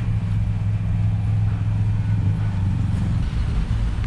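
Steady low rumble of a running motor vehicle engine.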